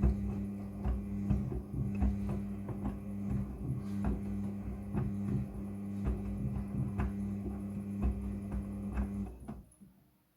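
Front-loading washing machine's drum motor running with a steady hum while the load tumbles with irregular soft knocks. The motor stops about nine and a half seconds in, as the drum pauses between turns.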